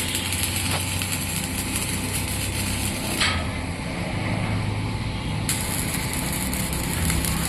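Steady mechanical hum with a hiss over it; the hiss surges briefly a little after three seconds and grows stronger from about five and a half seconds in.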